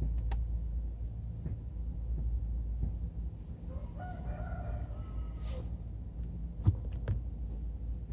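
A single drawn-out animal call, about a second and a half long, partway through, over a steady low rumble; two sharp knocks come near the end, the first the loudest.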